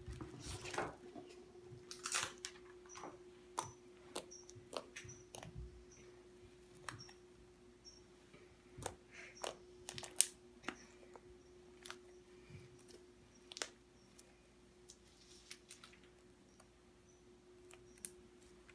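Fluffy slime being handled: faint, irregular little clicks and crackles as it is squeezed and pulled, over a steady low hum.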